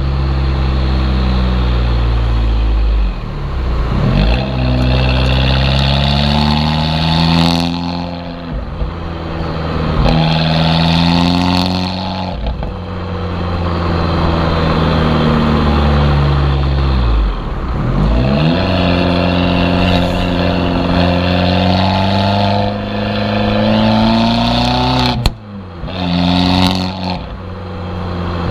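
Abarth 595's 1.4-litre turbocharged four-cylinder engine, breathing through a Monza exhaust with a 200-cell sports cat, pulling up through the revs under acceleration. Its pitch climbs, drops at each gear change and climbs again, several times over, with a brief sharp crack near the end.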